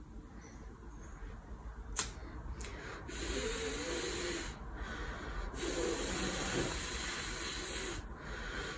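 A lighter clicks once as it is struck, then long forceful exhalations hiss out through a filtered cloth face mask at the flame, three breaths with short pauses between them.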